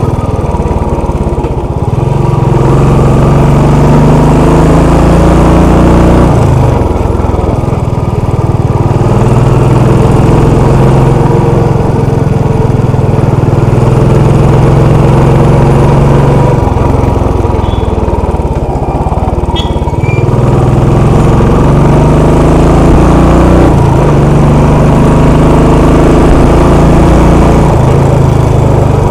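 Royal Enfield Classic 500's air-cooled single-cylinder engine running as the motorcycle rides downhill, its note dropping and rising several times as the rider eases off and opens the throttle.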